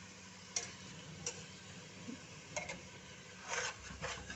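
A spatula stirring raw chicken and onions in a metal pot, with a handful of sharp clicks against the pot and a short scrape about three-quarters of the way through, over a faint sizzle of frying.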